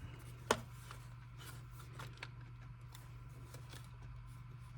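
Plastic clamshell housing of a DeWalt drill being worked apart by hand: one sharp click about half a second in, then a few faint clicks and rubbing as the halves shift, over a steady low hum.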